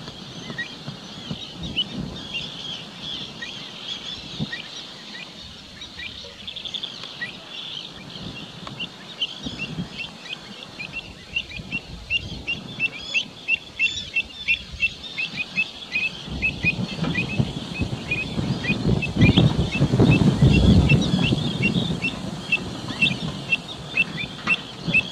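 Kentish plovers calling: a long run of short, high chirps, scattered at first, then about two or three a second through the second half. A low rushing noise swells under them past the middle.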